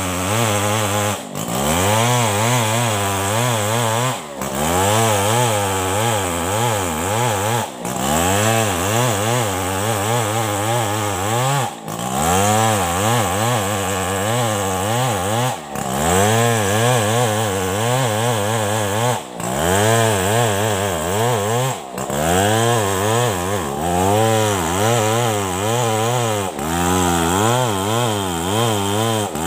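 Stihl 070 two-stroke chainsaw cutting under load through a coconut log, its engine note wavering up and down as the chain bites. The sound dips briefly every three to four seconds.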